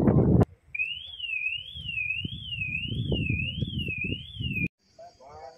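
Wind buffets the microphone for the first half second. After a cut, an electronic warbling tone rises and falls evenly about one and a half times a second over a low background rumble, and cuts off abruptly near the end. Faint high insect chirring follows.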